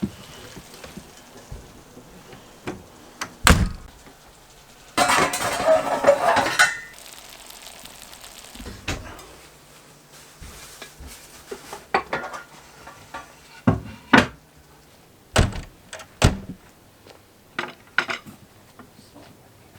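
Dishes, pots and cutlery clattering as a meal is served, with a dozen or so sharp knocks and clinks spread out and a dense rush of noise lasting about two seconds about five seconds in.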